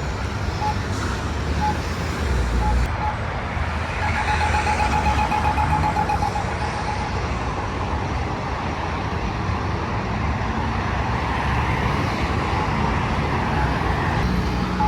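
Campbell accessible pedestrian signal push button ticking its locator tone about once a second, then, about four seconds in, switching to rapid ticking for about three seconds, the signal for the walk phase. Road traffic runs throughout.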